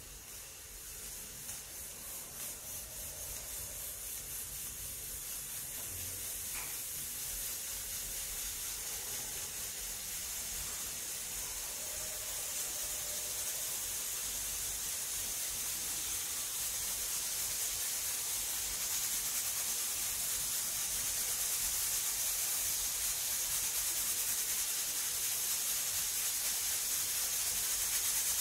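Pressure cooker hissing steam from its weight valve on the lid, growing steadily louder as pressure builds toward a whistle.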